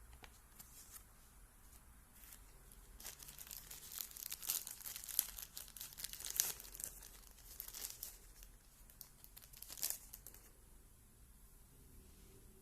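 Packaging being handled and unwrapped, crinkling and tearing in a dense run of crackly rustles for several seconds, starting about three seconds in and stopping near the end.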